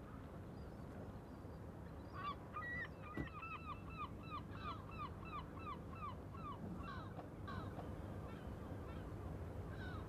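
A gull giving its long call: a quick run of repeated, downward-falling cries, about three a second, starting about two seconds in and fading after about five seconds, over a steady low background noise.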